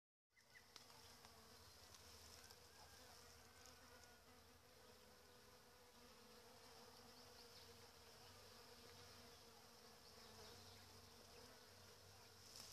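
Faint, steady buzzing of bees foraging among apricot blossoms.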